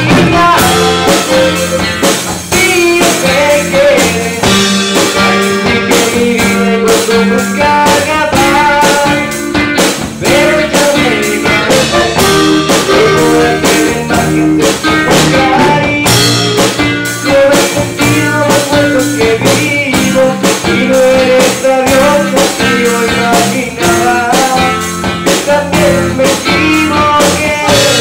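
Norteño band playing live: a button accordion carries the melody over strummed acoustic guitar, bass and drums, with a steady beat.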